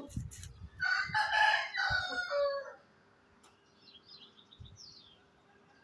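A rooster crowing once, a call about two seconds long, followed by a few faint high bird chirps.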